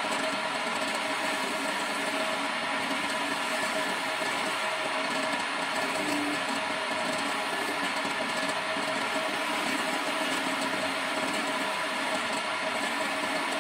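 Homemade wood lathe running steadily, its electric motor humming while a hand-held turning chisel cuts the spinning wooden spindle.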